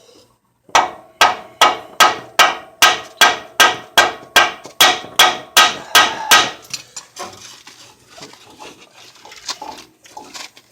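Hammer striking metal in a steady run of about fifteen blows, a little over two a second, to start the bolts of a new front control arm; the blows stop about six seconds in, followed by lighter clatter of metal parts and tools.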